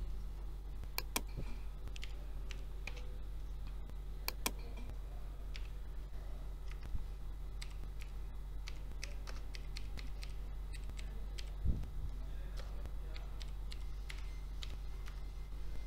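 Computer keyboard typing: irregular, scattered key clicks, over a steady low electrical hum.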